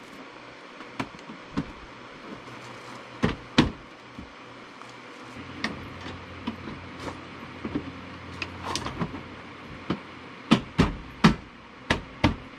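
Sharp plastic snaps and knocks as a 2008 Honda CR-V's front bumper cover is pressed and popped into its clips along the front: a loud pair a little over three seconds in and a quick run of them near the end.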